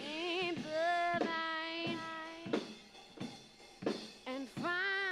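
Playback of a multitrack pop song mix: a sung lead vocal holding notes with vibrato over drum kit, bass and electric piano. The vocal carries a delay echo effect.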